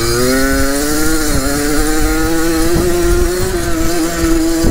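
Yamaha DT 50 dirt bike's two-stroke engine under way on the throttle. Its pitch dips right at the start, climbs for about a second and a half, then holds steady at high revs.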